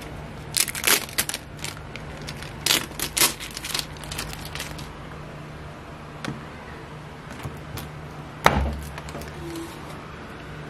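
Crackling of clear plastic protective film and tape being pulled from a new front-load washing machine's door, in two bursts of sharp crackles. Then, about eight and a half seconds in, one sharp clack with a low thud as the door latch releases and the door comes open.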